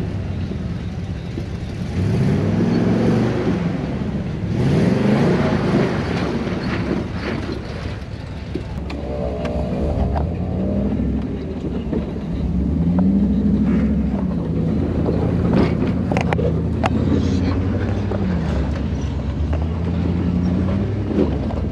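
Jeep engine revving up and falling back again and again under load while rock crawling up steep ledges, with a few sharp knocks about two-thirds of the way through.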